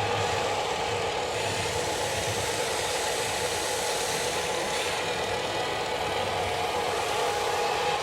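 Radio-controlled construction models running, a steady mechanical whine over rattly motor and gear noise.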